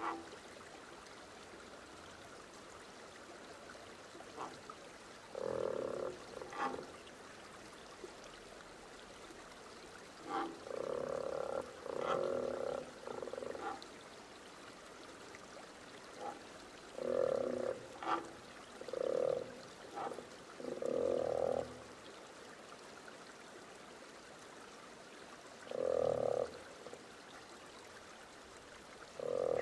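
An animal's short, low calls repeated in loose groups of two or three, with pauses of several seconds between groups, over a faint steady hiss.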